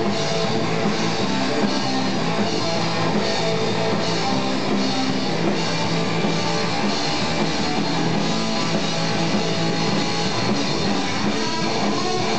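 Live rock band jamming: electric guitars played over a drum kit, loud and steady.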